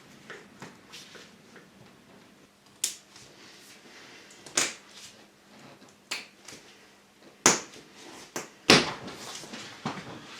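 Glued-on windscreen trim strip being levered off by hand: scattered sharp clicks and snaps as it pulls free, the loudest two near the end.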